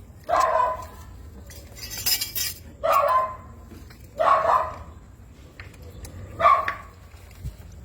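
A dog barking: four single barks spaced one to two seconds apart. A brief clatter comes about two seconds in.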